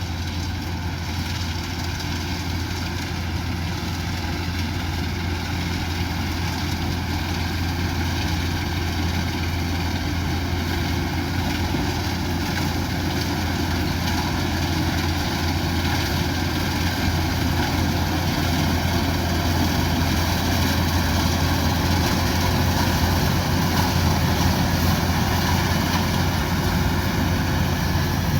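Rice combine harvester running steadily, a continuous engine drone with a strong low hum that grows slightly louder toward the end.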